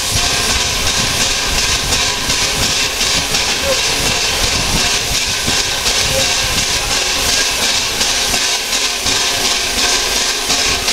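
A1 class steam locomotive 60163 Tornado hissing steam steadily, with a low rumble underneath.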